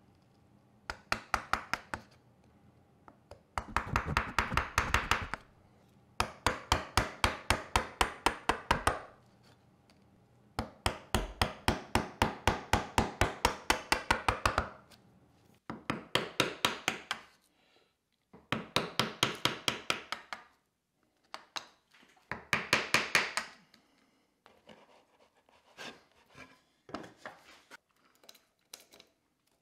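Bench chisel struck with a mallet in rapid runs of light blows, about seven a second, chopping waste out of a dovetail socket in wood. There are eight runs with short pauses between them, then a few fainter scattered knocks near the end.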